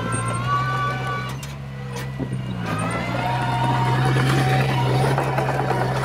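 Komatsu crawler bulldozer's diesel engine running steadily under load, growing louder about halfway through.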